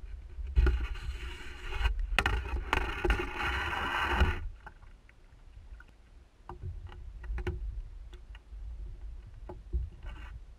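Canoe on the water: several seconds of rushing, scraping noise with a couple of sharp clicks, then scattered light knocks and taps against the hull.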